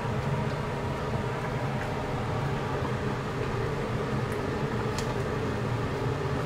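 Steady hum of a kitchen fan, with a couple of faint clicks of a metal ladle against the wok about four and five seconds in.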